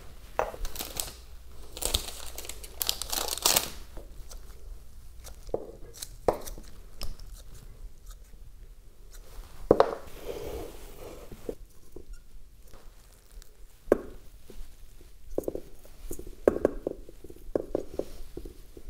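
Hands working potting soil in around moss in a terrarium: uneven rustling and crunching, with a few sharp clicks, the loudest about ten and fourteen seconds in.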